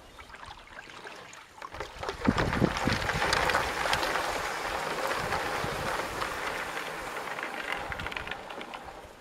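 Tall reeds brushing and scraping along a wooden canoe's hull as it pushes through a reed bed: a dense rustle full of small snaps and ticks that starts about two seconds in and eases off near the end.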